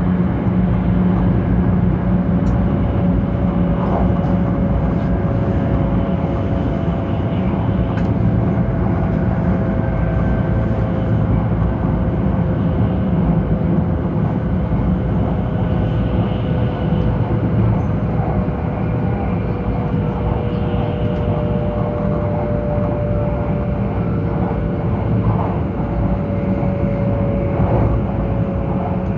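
Steady interior running noise of a Taiwan High Speed Rail 700T trainset at speed, heard from a passenger seat: a dense rumble with a low hum and a whine that slowly drops in pitch.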